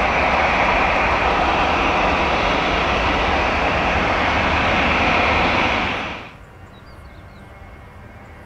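Jet airliner's engines running loud and steady, then cutting off abruptly about six seconds in to a much quieter background.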